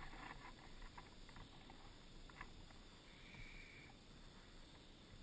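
Near silence: faint riverside ambience with a few soft clicks and, about three seconds in, a brief faint high whine.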